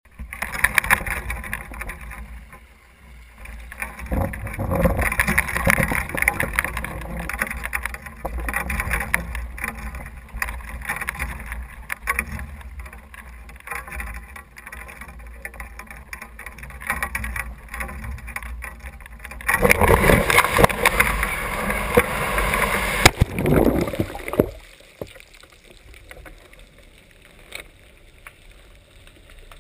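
Wind buffeting the microphone of a video camera hung from a basket fishing rig, with knocks as it swings on the line. About twenty seconds in comes a louder rushing stretch of several seconds. About twenty-five seconds in it cuts to a faint, muffled hush as the camera goes under water.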